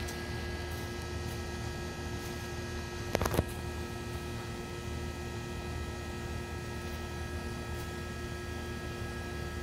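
A steady hum at a constant pitch, broken by a quick run of clicks about three seconds in.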